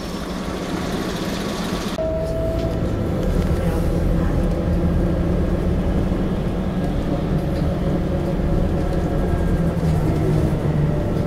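Scania K94IB coach engine running steadily, heard from inside the passenger saloon, with a short steady beep about two seconds in.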